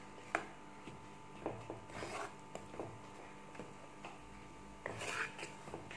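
Wooden spatula stirring and scraping grated coconut through jaggery syrup in a wok, faint, with a few light clicks and scrapes now and then.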